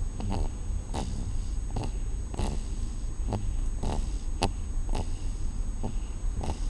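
Snoring in short, quick snorts, roughly one every three-quarters of a second, from a sleeper in a car, with a low steady car rumble underneath.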